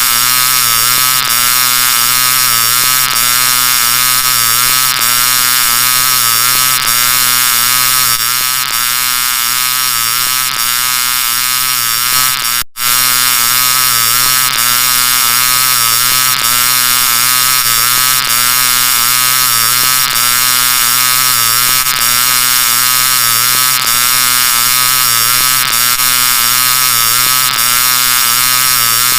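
Heavily distorted, pitch-shifted electronic sound effect in the 'G Major' edit style: a loud buzzing mass of many layered pitches that wobble up and down. The pattern loops about every two seconds and cuts out for an instant about thirteen seconds in.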